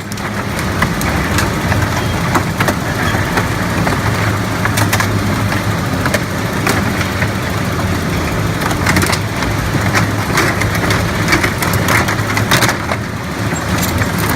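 Industrial shredder running under load, its motor humming steadily while it crushes old plastic washing machines, with frequent irregular cracks and snaps of the plastic breaking.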